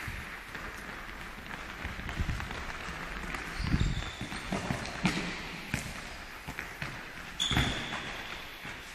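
A futsal ball kicked and bouncing on a sports hall's hard floor: a few separate thuds, the loudest about four and five seconds in and again near the end, echoing in the large hall.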